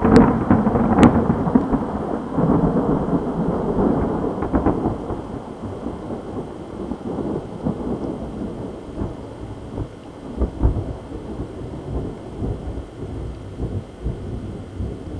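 Thunder from a close positive cloud-to-ground lightning strike: a sharp crack at the start and another about a second in, then a long rolling rumble that slowly fades. Rain is falling throughout.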